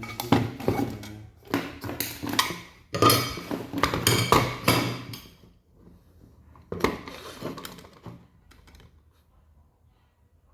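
Hard objects clattering and clinking in several bursts as tools and parts are handled on a workbench.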